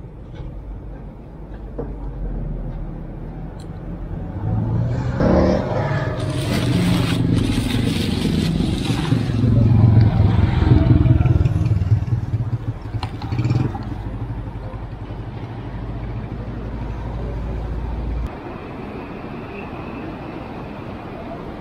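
Street traffic: a motor vehicle passes close by, building to its loudest about halfway through and fading after, over a steady low rumble that cuts off suddenly near the end.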